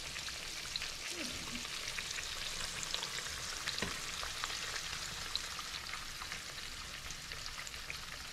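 Battered pickle slices frying in hot oil in a cast-iron skillet: a steady sizzling with many small crackles.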